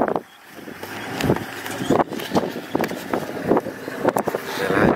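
Wind noise on the microphone with irregular knocks and rattles.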